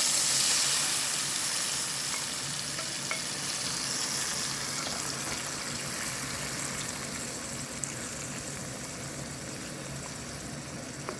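Soy-sauce-marinated mushrooms sizzling in hot vegetable oil in a pan over a high flame, loud the moment they go in and settling slowly into a steadier frying hiss, with a few faint clicks.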